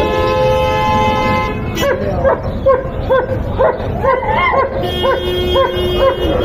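German Shepherd barking in a quick, steady run of about three barks a second, starting about two seconds in, as it strains on its leash toward another dog.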